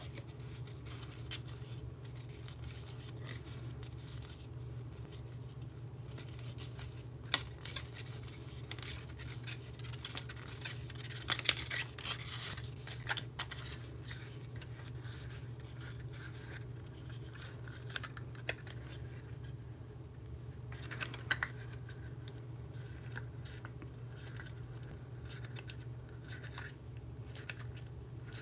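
Teal cardstock being handled and folded by hand: soft rubbing, scraping and small clicks of stiff paper, with clusters of louder scraping near the middle and again about two-thirds of the way through, over a steady low hum.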